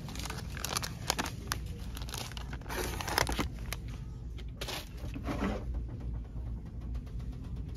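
Plastic product packaging crinkling and clicking as it is handled and taken off store pegboard hooks, in irregular short rustles over a low steady hum.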